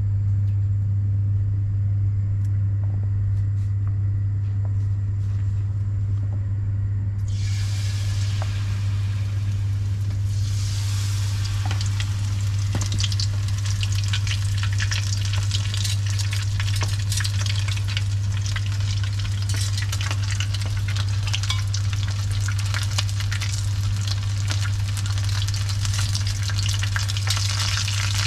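Batter-coated tempura pieces go into hot oil about seven seconds in, then sizzle and crackle steadily as they deep-fry. A steady low hum runs underneath throughout, with a few light clicks before the frying starts.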